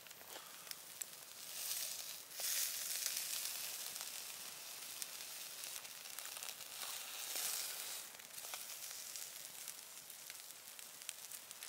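Salmon fillet sizzling on a wire grill net over charcoal, with scattered small crackles and pops. The sizzle swells louder about two seconds in and eases off around eight seconds.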